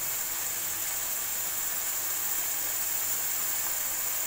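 Minced meat and crushed garlic-ginger paste sizzling steadily in a hot wok, a constant hiss as the water released by the garlic fries off.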